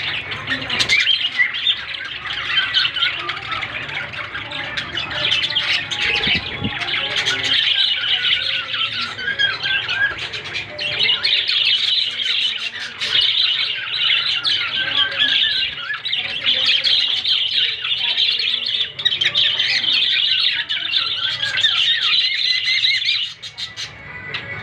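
Male cockatiel calling and squawking almost without pause, a dense run of harsh, high calls that eases briefly near the end.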